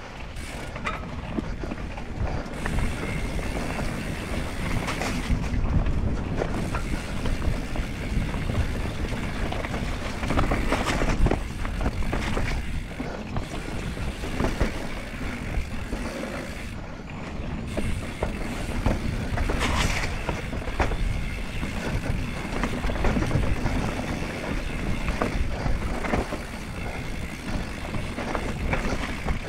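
Mountain bike riding downhill over a rough forest trail, heard from a camera mounted on the rider: a continuous rush of wind over the microphone, with the bike's chain and parts rattling and knocking over bumps.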